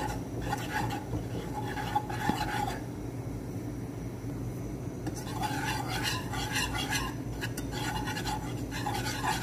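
Metal whisk scraping and stirring a crumbly flour-and-butter roux around a nonstick pan, in repeated strokes, with a quieter pause of about two seconds in the middle.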